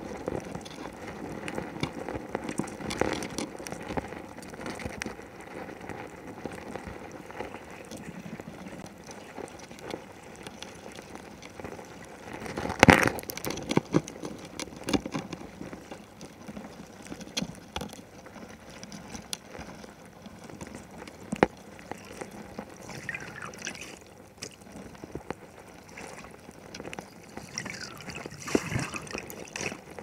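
Underwater sound picked up by an action camera in its housing on the seabed: a steady crackle of small clicks over water noise. About thirteen seconds in comes a louder rush of water, and a few short gurgles follow toward the end.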